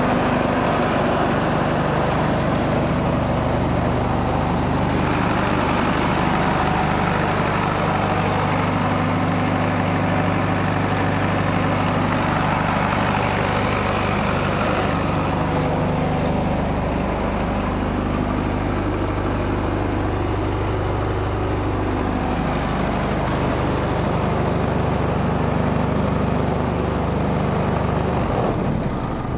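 Kawakenki KK-30 30 kVA silent diesel generator set running, a steady drone from its diesel engine. Near the end it is shut off with the emergency stop button and begins to run down.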